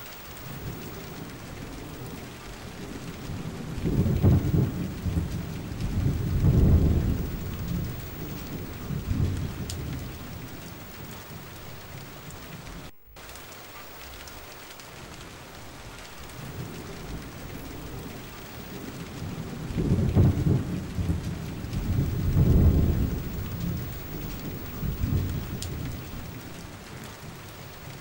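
Steady rain with rolling thunder: two long, deep rumbles a few seconds in, then two more past the middle. The sound cuts out for a moment about halfway through.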